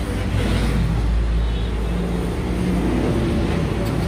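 A motor vehicle's engine running with a steady low rumble, its pitch wavering slightly.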